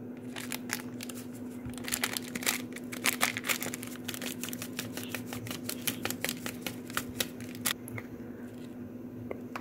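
Foil-lined spice sachet crinkling in quick, irregular clicks and rustles as it is squeezed and shaken empty over a steel bowl.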